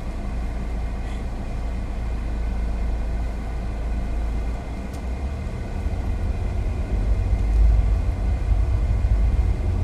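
Road and engine noise inside a moving car: a steady low rumble that gets louder about seven seconds in.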